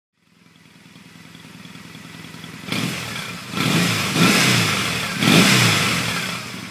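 An engine running, fading in and growing louder, then revving up and down several times in its second half.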